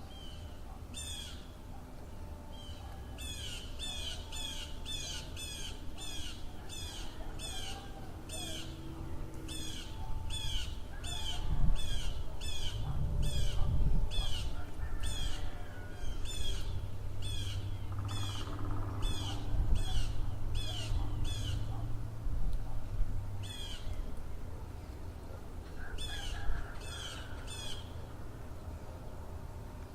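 A bird calling over and over, each call a short high downward note, about two a second, with a brief pause late on. Underneath runs a low rumble that swells in the middle.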